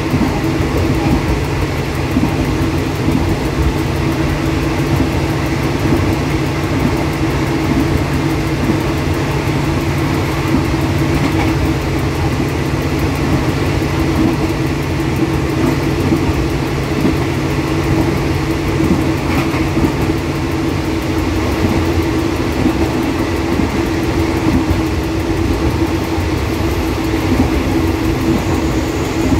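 Diesel express train running at close to 100 km/h, heard from inside the driver's cab: a steady engine drone over the rumble of wheels on the rails. A lower hum in the drone drops out about 21 seconds in.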